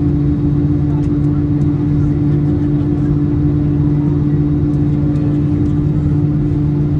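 Steady cabin drone of an Airbus A321-200 airliner on its landing flight: a low rumble with a steady hum on two pitches, one about an octave above the other.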